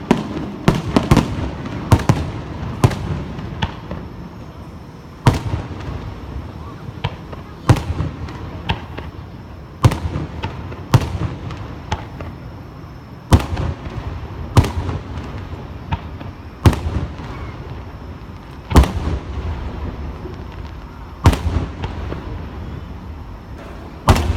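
Aerial firework shells bursting: a quick cluster of bangs in the first few seconds, then single booms every one to three seconds, with a low rumble between them.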